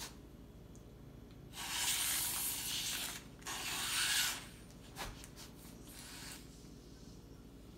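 Air sucked through a drinking straw out of a zip-top bag of peppers: two hissing draws, the first about a second and a half long, the second about one second, followed by a small click.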